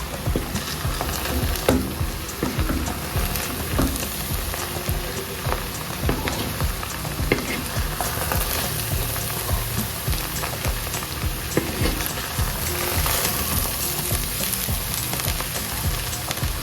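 Fried rice sizzling as it is stirred and turned, with frequent scrapes and knocks of the utensil against the pot.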